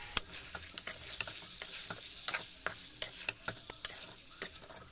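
Metal spatula knocking and scraping against a metal kadhai while chicken pieces are stirred and fried: irregular sharp clicks, several a second, over a faint sizzle.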